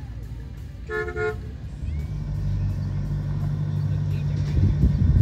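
A short vehicle horn toot about a second in, then a vehicle engine running with a steady low note that grows louder toward the end.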